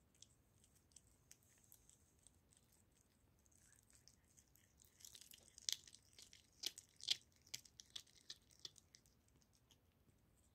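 A cat gnawing and tearing at a raw goose neck. A few faint clicks of the mouth come at first, then a run of sharp, wet bites and crunches from about five to nine seconds in.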